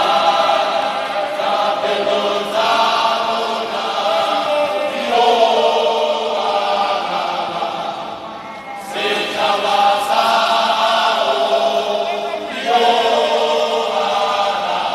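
A large group of voices singing a chant together in harmony, phrase after phrase, with short breaks between the phrases every few seconds.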